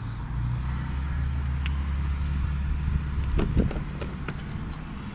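Low, steady hum of a running vehicle engine that eases off about three seconds in, followed by a few sharp clicks and knocks of hard plastic as a hand works the latch of a compact tractor's rear storage box.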